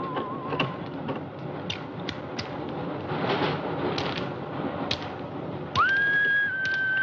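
Whistling: a wavering held note at the start, then a note that slides up and holds for about two seconds near the end, with scattered sharp clicks and knocks between.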